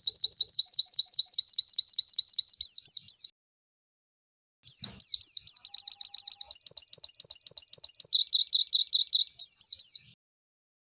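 A pleci (white-eye) sings two long, loud phrases of rapid, repeated down-slurred high notes, about ten a second. The first phrase stops about three seconds in, and after a short pause a second, longer phrase runs until near the end. This is the fast 'tembakan' style of song used as training material for other white-eyes.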